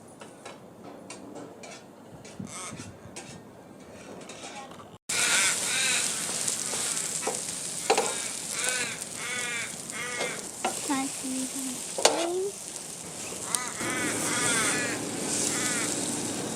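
Quiet at first with a few light clicks. About five seconds in, a loud steady sizzling hiss starts abruptly, with runs of short, repeated calls over it.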